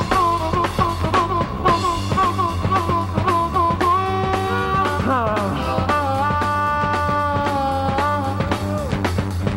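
Harmonica solo in a heavy rock band, cupped into a vocal microphone. It plays a quick riff of repeated short notes, then long held notes that bend down in pitch, over drums and bass guitar.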